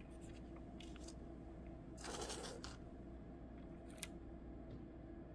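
Thin clear plastic PET sticker film crinkling and rustling as it is peeled and handled, loudest for about half a second around two seconds in, with a few light ticks. A low steady hum underneath.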